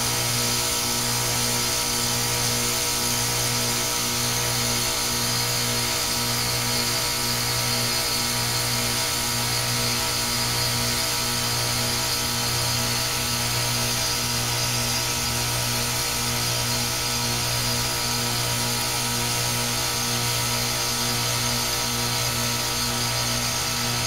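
2010 ICP Tempstar heat pump outdoor unit running through a defrost cycle, a steady machine hum with an even hiss over it and no change or switch-over.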